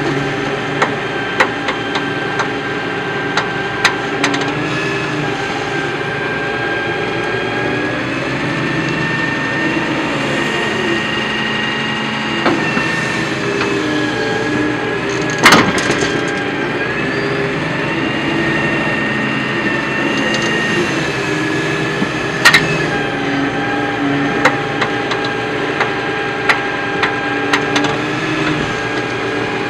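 Doosan DX140W wheeled excavator's diesel engine running under working load, its pitch rising and falling as the bucket digs. Scattered clicks and knocks of rocks and soil against the steel bucket, with two sharp bangs, about halfway and about three-quarters of the way through.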